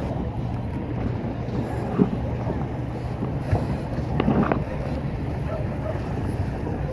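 Wind buffeting the microphone in a steady low rumble while water sloshes around a pedal boat. There are brief knocks or splashes about two seconds in and again around four seconds in.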